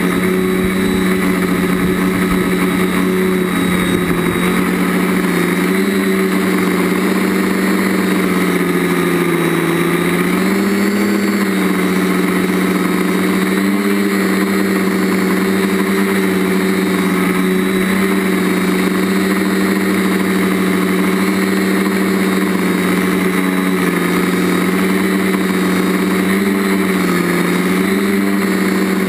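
Quadcopter's DJI stock brushless motors and propellers buzzing loudly at a steady pitch, recorded by the camera on board. The pitch rises and dips a few times as the throttle changes.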